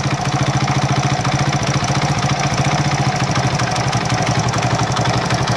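Yamasaki moped's small horizontal single-cylinder four-stroke engine idling cold, a steady, even pulsing beat. The idle is ice-cold and may still need adjusting.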